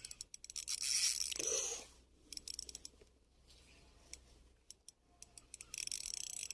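Shimano Soare CI4 spinning reel wound in to bring in a hooked chub, a rapid dry mechanical clicking that pauses in the middle and starts again near the end.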